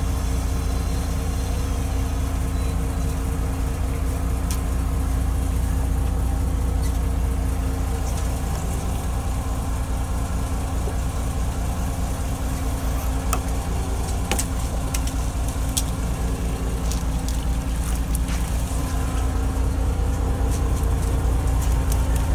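Fishing boat's engine idling with a steady low hum, with scattered sharp clicks and taps from the middle onward.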